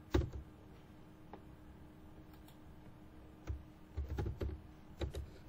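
Computer keyboard typing: a couple of keystrokes at the start, a near-pause with a few scattered clicks over a faint steady hum, then a quick run of keystrokes in the last two seconds.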